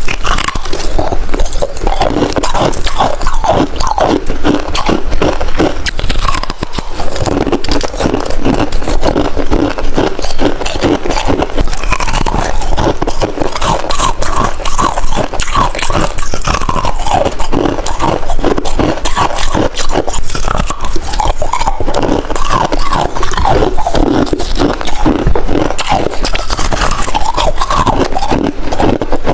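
Close-miked biting and chewing of crunchy freezer-frost icicles: a dense, continuous run of crisp crunches and scraping bites.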